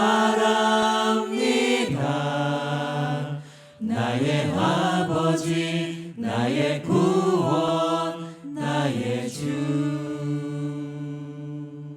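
Church praise team singing the closing phrases of a Korean worship song, ending on a long held chord that fades out near the end.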